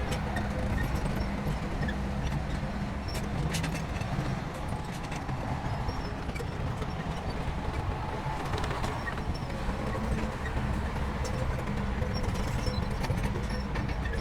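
Heavy diesel construction machinery running steadily, with a few sharp clanks or knocks about three seconds in.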